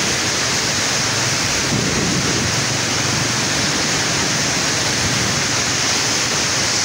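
Muddy floodwater of a swollen mountain river rushing and churning in a loud, steady torrent, with a deeper rumble swelling briefly about two seconds in.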